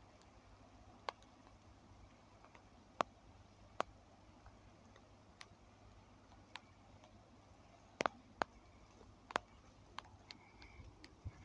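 About a dozen short, sharp ticks and clicks at uneven intervals over a faint, steady background.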